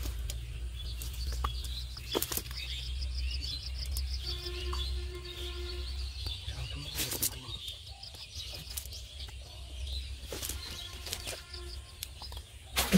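Freshly caught fish flapping and slapping against the net and dry grass, a few sharp slaps and rustles, the loudest near the end. Under it runs a steady fast high chirping and a low rumble.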